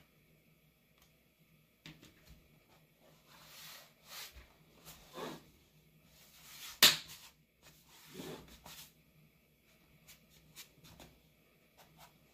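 Plastic laptop case and parts being handled: scrapes, light taps and a series of small clicks, with one sharp click a little past the middle that is the loudest sound.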